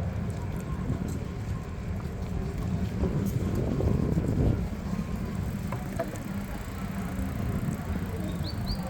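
Low wind rumble on the microphone of a moving bicycle, swelling about four seconds in, with a few faint high chirps near the end.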